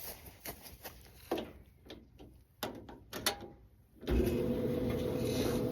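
A few light clicks and knocks, then about four seconds in an old electric clothes dryer starts up and runs with a steady motor hum, powered through a newly wired 30 amp dryer outlet.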